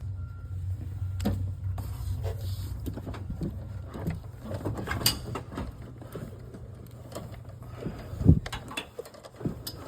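Scattered clicks, scrapes and knocks as a new shifter cable is worked through a hole in the truck and fed down, with one sharper knock near the end, over a steady low hum.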